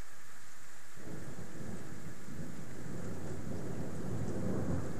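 Rolling thunder from a severe thunderstorm: a deep rumble breaks in about a second in and builds to its loudest near the end, over the steady hiss of rain.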